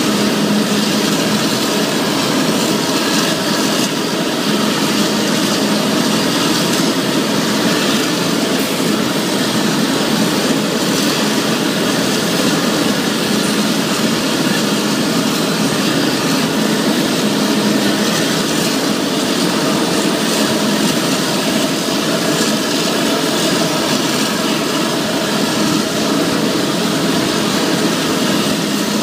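Claas Jaguar 980 forage harvester running steadily under load, chopping standing corn for silage with its 10-row Orbis header and blowing it into a trailer alongside.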